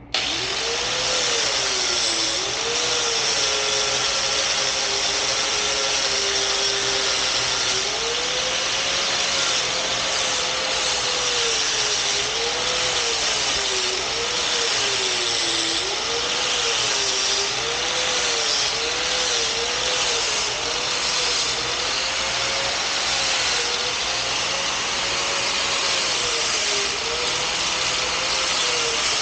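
A machine starts abruptly and runs continuously with a loud hiss, over a single tone that wavers up and down in pitch as if the motor is being loaded and released.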